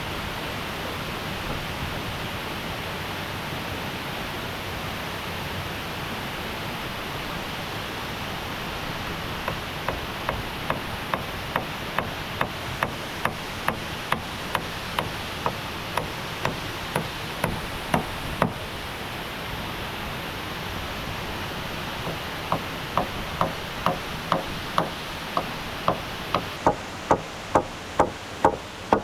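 Steady rush of a waterfall, with two runs of hand-tool blows on wood, about two strikes a second. The first run lasts about nine seconds; the second starts after a short pause and grows louder toward the end.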